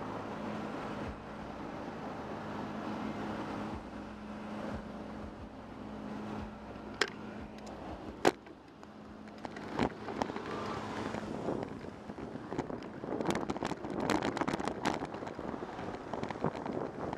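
Road traffic at an intersection: cars driving past with a steady engine hum. Two sharp clicks come about seven and eight seconds in, then a dense crackling rattle and wind on the camera as the bicycle gets moving.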